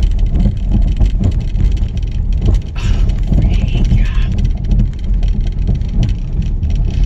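Car cabin noise while driving: a steady low rumble of engine and tyres on the road. A brief higher sound comes in about three seconds in.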